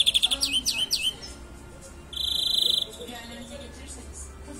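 Greenfinch singing: a rapid buzzy trill, a few quick rising notes, then after a short pause another rapid trill about two seconds in. A greenfinch fancier judges this song poor, its rolls full of faults.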